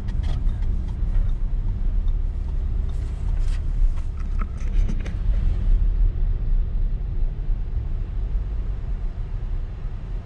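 Audi Q7 on the move, a steady low road-and-engine rumble as heard from inside the cabin, with a few light knocks between about three and five seconds in.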